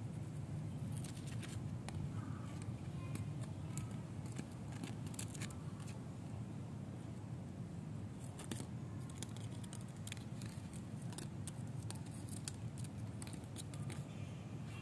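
A leaf rustling and scraping as it is flicked and dragged across a stone ledge: irregular short crisp clicks and scratches, over a steady low background rumble.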